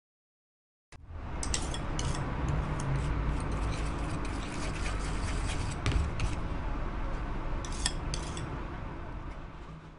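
Light clinks and clicks of small hard objects, glass or metal, over a steady low rumble of room noise; it starts suddenly about a second in and fades out near the end.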